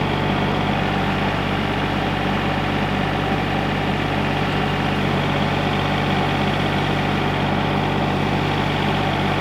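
An engine idling steadily, with an even, unchanging low hum.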